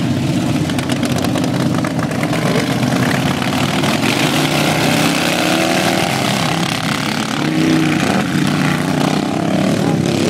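Racing lawn mowers' small engines running hard as the pack passes, several engine notes overlapping and rising and falling in pitch.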